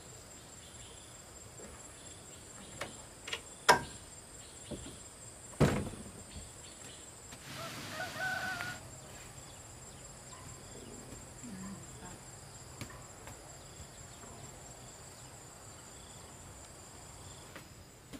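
Outdoor rural ambience with a steady high-pitched insect chirring. Two sharp knocks about four and six seconds in are the loudest sounds, and a short call comes about eight seconds in.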